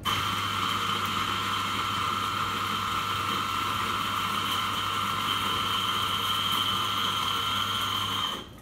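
Eureka Mignon XL espresso grinder's motor running steadily with a high whine, grinding a timed dose of about eight seconds into a portafilter, then cutting off abruptly.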